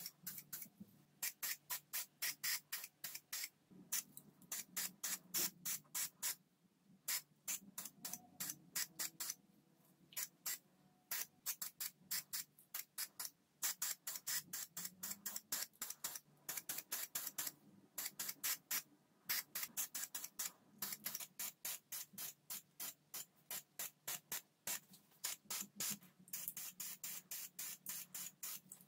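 Aerosol spray-paint can giving short, quick bursts of hissing spray, two or three a second, with brief pauses between runs.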